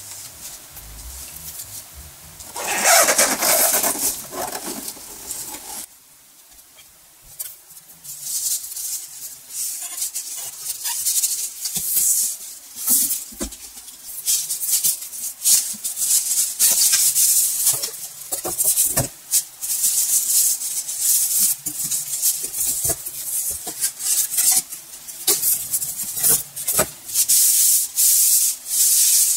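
Packing being pulled off a new laser printer: a few seconds of foam inserts rubbing and scraping, then plastic wrapping rustling and crinkling in quick, irregular bursts.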